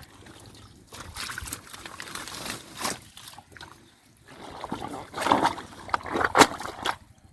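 Shallow water sloshing and splashing in irregular bursts as it is worked by hand, with the biggest splashes about five to seven seconds in.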